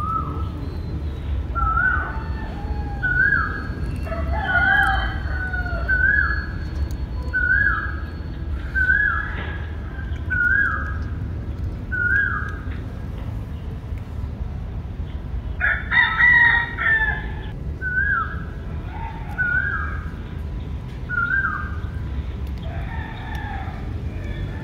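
Chickens calling: a short clucking call repeated about every second and a half, with a louder rooster crow about sixteen seconds in.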